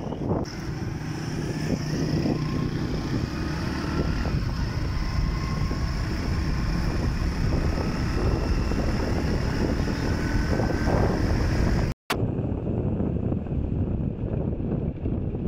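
Motorcycle engine running while riding along a road, with wind buffeting the microphone; the engine pitch climbs slowly as it picks up speed. The sound cuts out for a moment about twelve seconds in, then the riding noise resumes.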